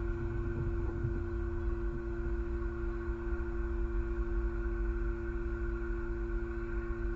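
A steady hum of several held tones over a low rumble.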